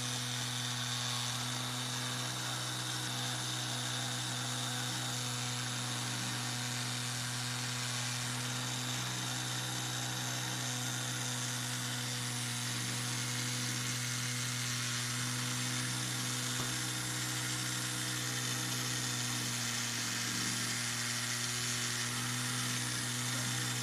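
Antique mechanical panda toy running: its small motor and gears whir steadily, without a break, as the arm dips the pipe into the bowl and raises it to blow bubbles.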